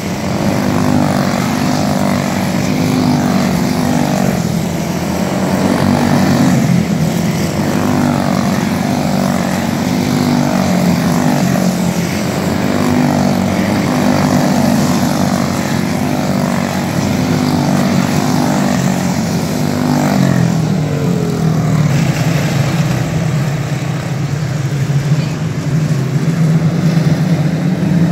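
Several quarter midget race cars with Briggs & Stratton Animal single-cylinder engines racing laps, each engine note rising and falling over and over as the cars go through the turns. About three-quarters of the way through, the rising and falling stops and the pack settles into a steady, lower drone as the cars slow and bunch up.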